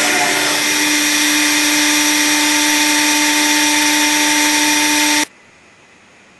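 Accu-Systems cup hinge machine running its cutting spindle at a steady high speed, a loud even whine over machining noise. The sound cuts off suddenly about five seconds in, leaving a quiet hiss.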